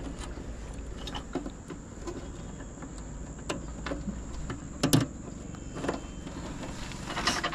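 Small clicks, knocks and rattles of fiber-optic connectors and drop cables being handled inside a plastic street cabinet, over a low steady rumble. The sharpest click comes about five seconds in, and a quick run of clicks comes near the end.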